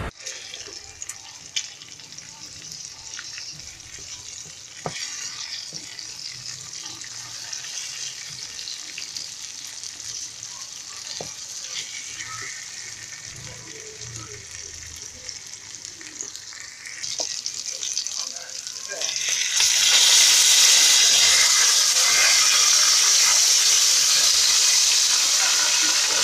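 Pieces of rib meat sizzling in hot oil in a frying pan, with occasional clicks of stirring. About 19 seconds in, the sizzle suddenly jumps to a loud, steady hiss as a burst of steam rises from the pan.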